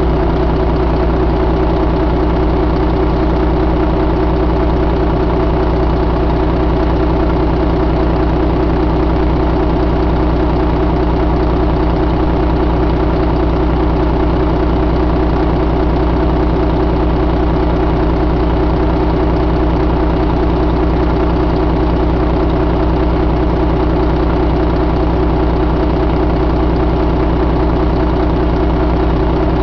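Volvo D13 inline-six diesel engine idling steadily, with no change in speed.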